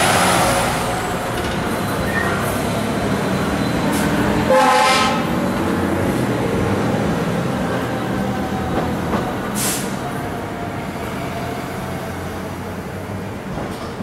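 Fire apparatus on an emergency response: a siren wail fading out in the first second or two over the steady rumble of the trucks' diesel engines. A short air horn blast comes about four and a half seconds in, and a brief hiss near ten seconds in, as the trucks move off and the sound slowly fades.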